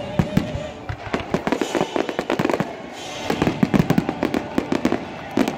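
Fireworks going off in rapid volleys of sharp bangs and crackles, with a thinner spell a second or two in before the bursts crowd together again.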